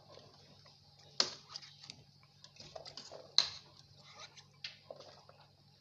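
Faint kitchen handling noises around a cooking pot: scattered clicks and light knocks, with two sharper ones about a second in and again about three and a half seconds in, over a low steady hum.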